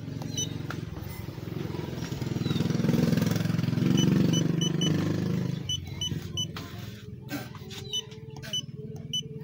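A low engine rumble that swells loud through the middle and then fades, with runs of short high beeps from a handheld diagnostic scanner as its buttons are pressed.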